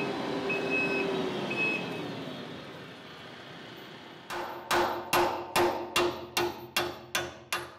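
A tractor engine running and fading away as the bush hog is backed in, with two short high beeps about half a second and a second and a half in. Then, from about four seconds in, a hammer strikes the seized tail-wheel spindle of the bush hog rotary cutter about nine times, roughly two blows a second, each blow ringing like metal.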